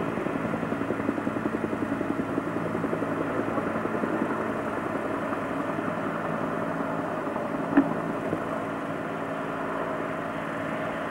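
Aérospatiale AS350B Squirrel helicopter running on the ground: the steady tone of its single turboshaft engine over a fast, even beat from the main rotor, with one short click about eight seconds in.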